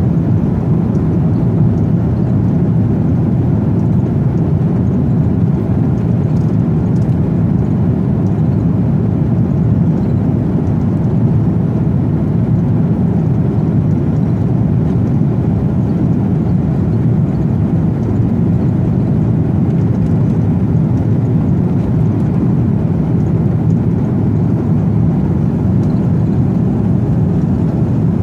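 Steady cabin noise of an airliner on final approach, heard from inside: engines and rushing air as a deep, even rumble with no break.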